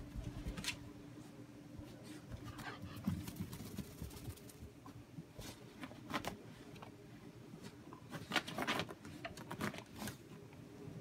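A small wet, shaggy dog rolling on its back and rubbing itself dry along a carpet: irregular scuffing and scrabbling of fur and paws on the pile, with a busier run of scratchy scrapes about eight seconds in.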